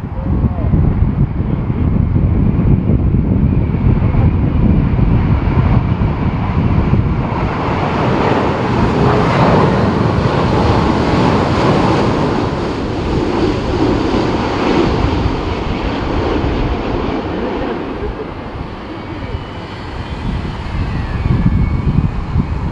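Jet airliner flying past on its landing approach, its engine noise swelling to a peak about halfway through and then fading, over a steady low rumble of strong wind on the microphone.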